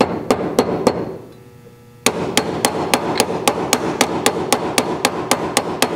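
Ball peen hammer striking the backside end of a rivet on metal weights, peening it over so it mushrooms over the hole. A few quick strikes, a pause of about a second, then a steady run of about four strikes a second.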